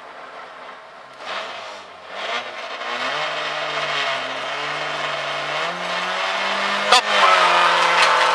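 Volkswagen Gol rally car's engine heard from inside the cabin: it idles, is blipped a couple of times, then held at high revs while waiting to launch. About seven seconds in there is a sharp crack and the engine settles into a steady, louder note under load as the car pulls away.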